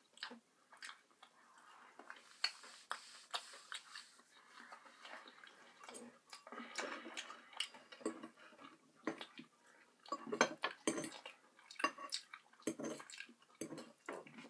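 Metal eating utensil clinking and scraping against a ceramic bowl, a string of irregular small taps and scrapes as food is stirred and picked up.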